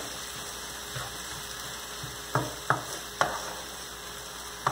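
Diced bell peppers, onion and tomato sizzling gently in a frying pan as a wooden spoon stirs them, the spoon knocking sharply against the pan about five times.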